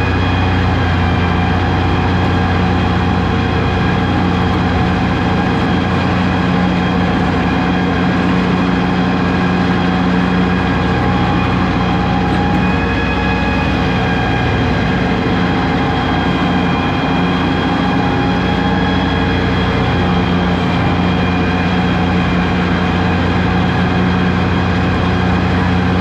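Diesel tractor engine running at a steady speed: a constant, even drone that does not change through the whole stretch.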